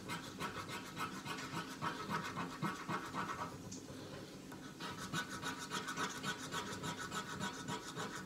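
A coin scraping the coating off a scratch-off lottery ticket in quick, repeated strokes, with a short pause about halfway through.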